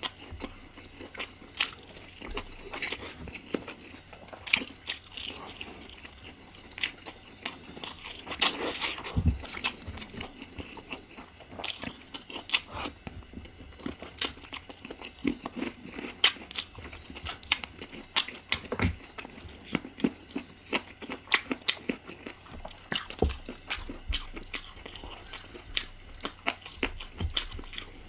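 Close-miked eating of spicy chicken curry: chewing and biting with frequent wet, crunchy clicks and smacks.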